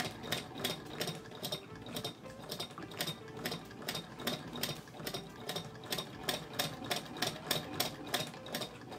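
1919 Frister & Rossmann hand-crank sewing machine being cranked and stitching through fabric: a steady, even clatter of the needle and shuttle mechanism, several ticks a second. The freshly cleaned and oiled machine is running smoothly.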